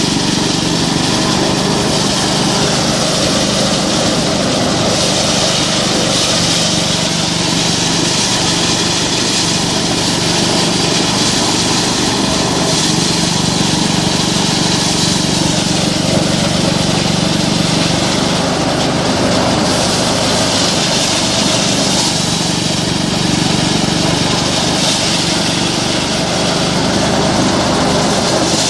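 An engine-driven rice threshing machine running steadily at speed, its small engine humming under a continuous mechanical rattle.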